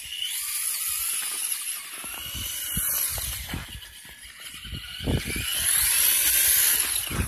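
Traxxas Stampede 2WD RC monster truck's electric motor and drivetrain whining at high pitch as it drives and spins its wheels in snow. The whine swells and fades with the throttle, dipping around the middle and loudest in the last couple of seconds.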